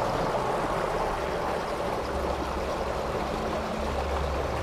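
Steady rushing background noise with a low rumble underneath.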